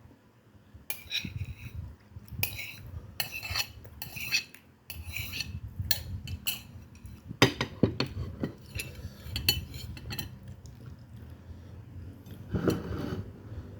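Metal cutlery clinking and scraping against a plate or bowl during a meal, in a run of short, irregular strikes.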